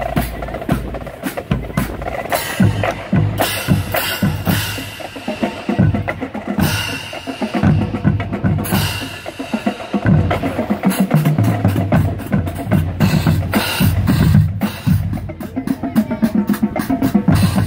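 Marching band drumline playing a cadence, with snare drums and marching bass drums keeping a steady beat.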